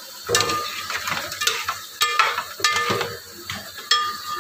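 A slotted spatula stirring chicken pieces in a metal pot, with irregular scrapes and knocks against the pot, some followed by a brief ring, over a light sizzle of the chicken cooking in oil and soy sauce.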